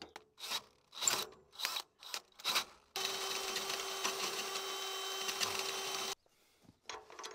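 Power drill running steadily for about three seconds, starting about three seconds in and cutting off suddenly, drilling weld spatter and debris out of a bolt hole in a bulldozer's lift-cylinder mount. Before it come a few short scraping strokes of a tool probing the hole.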